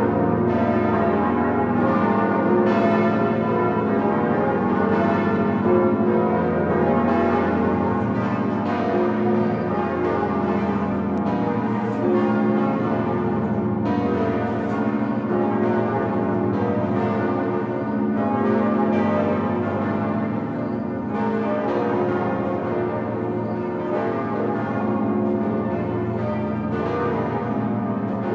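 The swinging bronze bells of Notre-Dame de Paris, turned by motor-driven wheels, ringing together in full peal (plenum, the Grand Solemnel). Their strokes overlap without a break into a continuous clangour, with the deep hum of the bourdons underneath.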